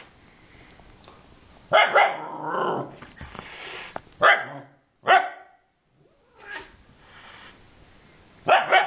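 A dog barking in short, sharp barks: a pair about two seconds in, two single barks about a second apart, then another pair near the end.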